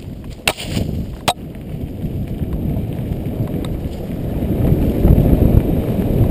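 Wind rumbling on the microphone and tyres running over a dirt trail during a fast descent on a Specialized Demo downhill mountain bike. The rumble grows louder over the last couple of seconds as speed builds. Two sharp knocks come about half a second and just over a second in.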